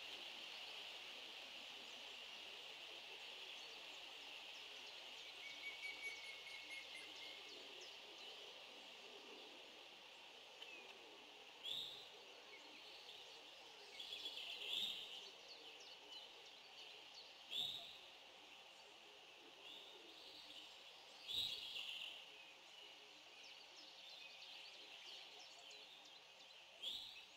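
Faint outdoor ambience: a steady high hiss, a short whistled note about six seconds in, and a handful of brief high chirps a few seconds apart in the second half.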